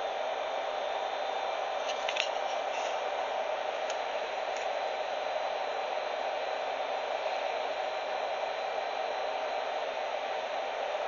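A steady hiss, with a few faint clicks about two seconds in.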